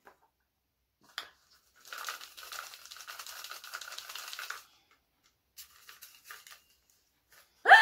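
A dry, scratchy rustling rattle lasting about three seconds as something is handled, with a short click before it and a few faint scrapes after.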